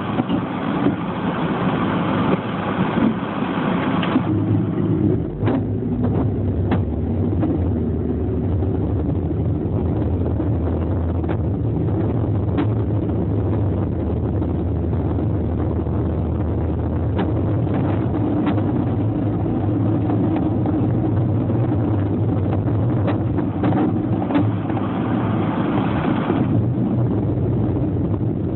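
Motor vehicle running with a steady low engine hum and road noise, and scattered small clicks. A louder hiss rises over it for the first few seconds and again near the end.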